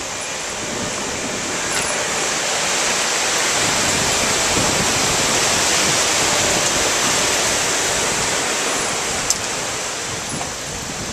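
Water gushing and spraying through leaking canal lock gates into the lock chamber: a steady rushing hiss that swells towards the middle and eases off again. A single sharp click about nine seconds in.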